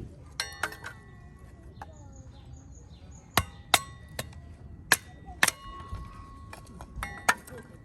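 Unpainted iron fire-pit parts knocking together as they are handled. About eight sharp metal clanks come at irregular intervals, several followed by a short ringing tone.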